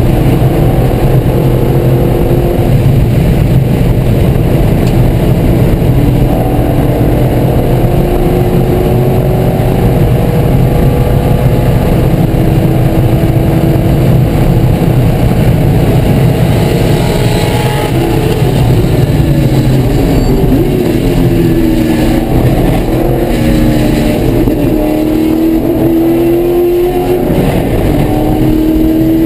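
C5 Corvette Z06's LS6 V8, loud throughout from inside the race car's cabin at race pace, its pitch climbing and falling as it runs through the gears.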